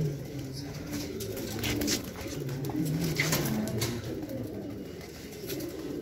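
Domestic flying pigeons cooing, low wavering coos that come and go and overlap. A few short clicks sound about two and three seconds in.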